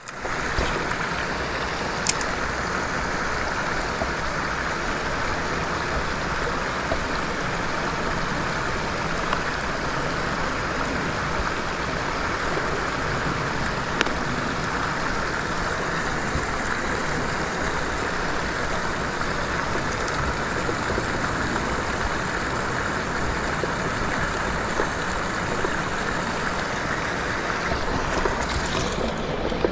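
Steady rushing of flowing water, even and unbroken, with a couple of faint clicks.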